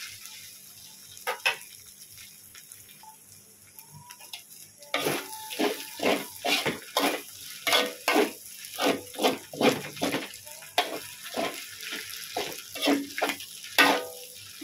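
Slotted metal spatula scraping and clanking against a metal wok while stir-frying kuey teow noodles and bean sprouts, over a faint frying sizzle. Little more than a single click for the first five seconds, then the strokes come about twice a second.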